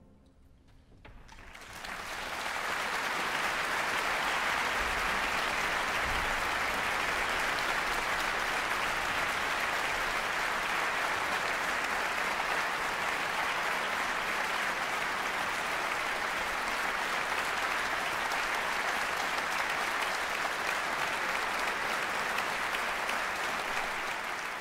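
Concert-hall audience applauding: after a moment of near silence the clapping swells in about two seconds, holds steady, and fades out at the very end.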